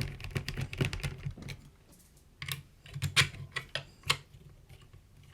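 Tripod parts being handled and fitted together by hand: a run of small clicks and rattles, then a few sharper knocks about three and four seconds in.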